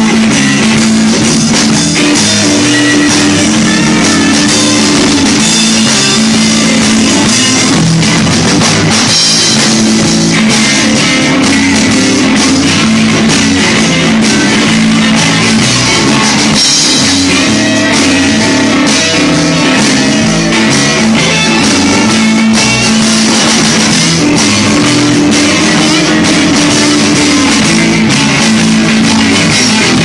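Live rock band playing a loud instrumental passage on electric guitars, bass guitar and drum kit.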